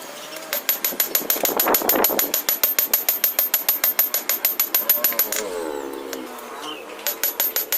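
Rapid, evenly spaced hammer blows on hot steel, about six or seven a second, each with a bright metallic ring, typical of a power hammer drawing out a Damascus billet. The blows stop for about a second and a half, with a falling tone in the gap, then start again near the end.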